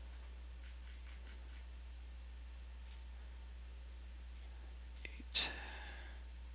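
Faint, irregular computer mouse clicks, with one louder short sound about five and a half seconds in, over a steady low hum.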